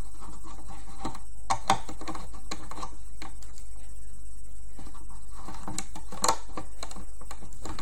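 Scattered small clicks and taps as rubber loom bands are stretched over the pins of a plastic loom by hand, over a steady low hum.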